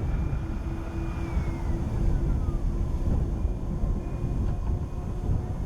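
Twin 127mm electric ducted fans of a large RC MiG-31 jet model whining in flight, the whine falling in pitch as the jet passes about two seconds in, over a steady low rumble.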